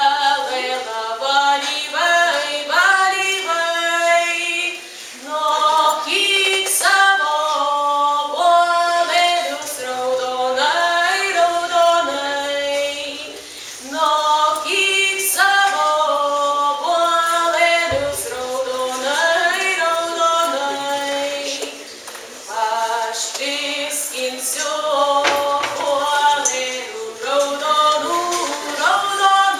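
A girl and a boy singing a Lithuanian song as a duet, in sung phrases with brief pauses about every eight seconds.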